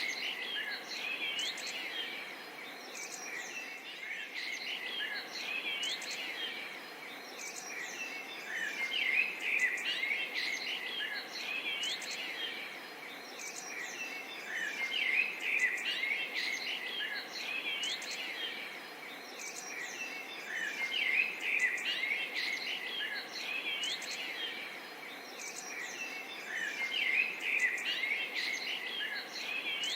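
Forest and swamp soundscape: a dense chorus of bird chirps and calls over a steady insect background, swelling and easing in loudness about every six seconds.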